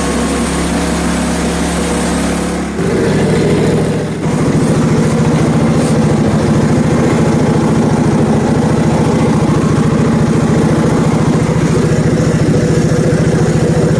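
Small gas engine of a portable bandsaw sawmill running steadily, with its tone changing abruptly about three seconds in and again a second later, then holding steady.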